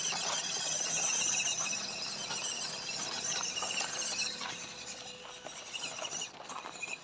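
A loud, pulsing chorus of chirping insects that eases after about four seconds. Under it come scattered light clicks and crunches from a small RC rock crawler creeping over dry dirt and leaves.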